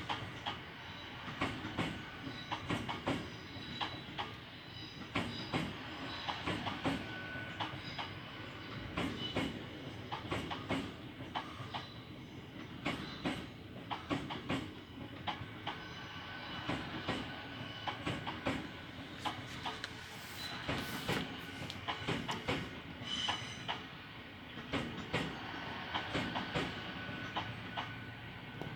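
A train running over the rails, its wheels clicking over rail joints and points again and again, with a thin squeal from the wheels on and off.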